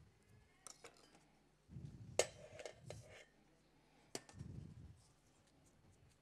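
Faint kitchen clatter: a handful of sharp clicks and knocks of a knife and utensils on a cutting board, the loudest about two seconds in, with some low rumbling handling noise between them.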